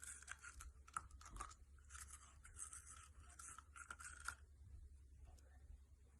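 Near silence with faint rustling and crackling and a few soft clicks over the first four seconds or so, then quieter.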